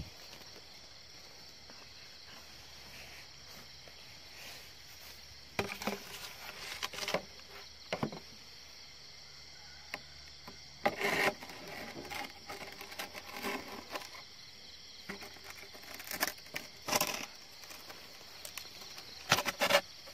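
A steady chorus of night insects, with scattered knocks, scrapes and rustles as a PVC tube eel trap is handled.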